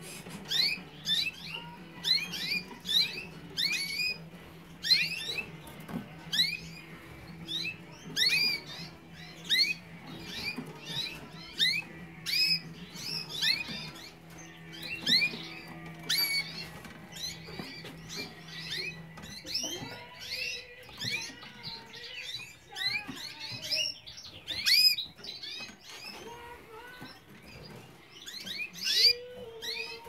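Irish Fancy canaries calling in a steady run of short, rising chirps, about two a second. A low steady hum runs underneath and stops about two-thirds of the way through.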